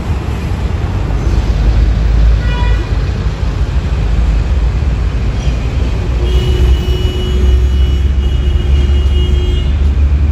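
Loud, steady low rumble of a car being driven: engine and road noise. A brief tone comes about two and a half seconds in, and a faint steady tone runs through the second half.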